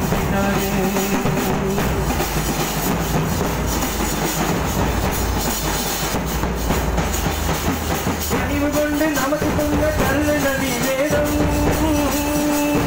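Street drum band: large bass drums and snare drums beaten with sticks in a loud, dense rhythm. A melody of long held notes joins in over the drumming about eight seconds in.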